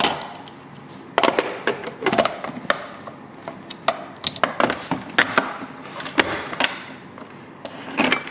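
Hard plastic clicks and knocks of a Ninja Creami being assembled: the pint set into its outer bowl, the paddle lid latched on and the bowl twisted and locked into the machine. A dozen or so sharp, irregular clicks.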